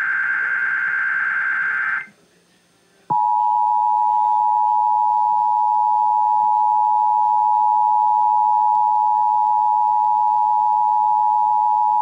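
Emergency Alert System signal received on an FM car stereo. It opens with the last of the SAME digital header, a warbling data burst that stops about two seconds in. After a second's pause comes the EAS attention signal, a steady two-tone sound held for about nine seconds before it cuts off. Together they announce an alert, here a required weekly test.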